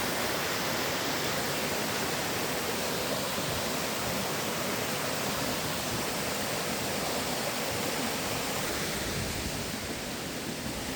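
Waterfall pouring: a steady, unbroken rush of falling water that dips a little near the end.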